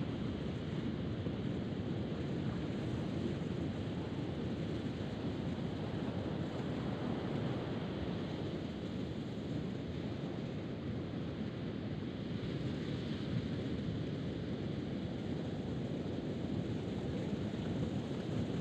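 Steady wind rushing over the microphone, mixed with ocean surf breaking on the beach.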